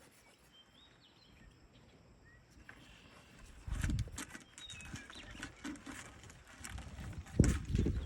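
Faint birds chirping, a few short calls, with louder rustling and dull thumps of handling or footsteps starting about halfway through.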